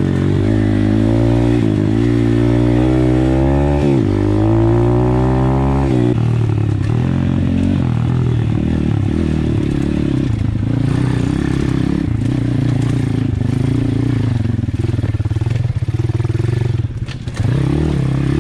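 Apollo RFZ pit bike's swapped-in 150cc single-cylinder four-stroke engine under throttle. It climbs in pitch, drops at a gear change about four seconds in and climbs again, then runs at lower, uneven revs with clatter over a rocky trail, the throttle briefly closed near the end.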